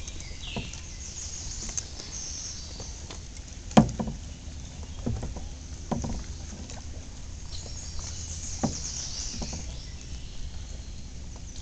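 Kayak paddling: splashes and drips of water from the paddle over a steady low rumble, with a few sharp knocks, the loudest about four seconds in.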